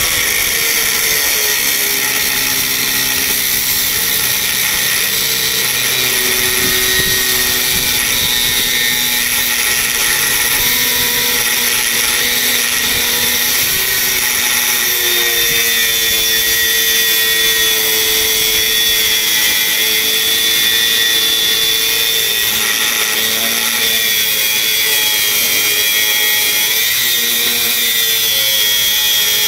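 HL Premier DG 850 4-inch angle grinder cutting through a 25 mm solid steel bar, the disc grinding into the metal without a break. A thin high tone rides on the grinding, and the motor's lower hum drifts up and down in pitch as the load on the cut changes.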